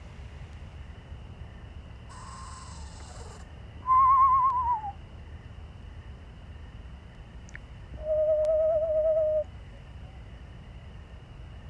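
Screech owl calling: a faint hissing screech, then a loud quavering whistle that falls in pitch, and a few seconds later a steady quavering trill on one lower note.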